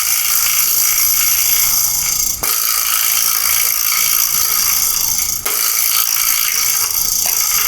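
Wooden-bodied vibraslap struck twice, about two and a half and five and a half seconds in. Each hit sets off a buzzing rattle of the metal teeth in its box lasting about three seconds, and the rattle from a hit just before is already sounding at the start.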